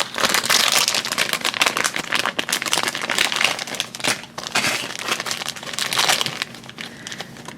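Thin plastic blind-bag packaging crinkling and tearing as it is pulled open by hand, in dense irregular crackles that thin out toward the end.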